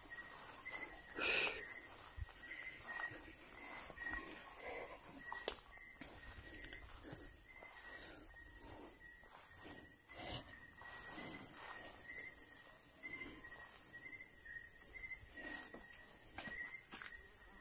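Night insect chorus: crickets trill steadily in several high tones, with a fast pulsing chirp series joining in the second half, and a short chirp repeating about twice a second throughout. Soft footsteps rustle through grass.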